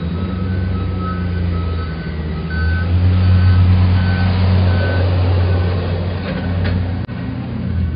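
Vehicle reversing alarm beeping over and over, alternating between two close pitches, over a low engine drone that swells in the middle. The beeping stops about six and a half seconds in.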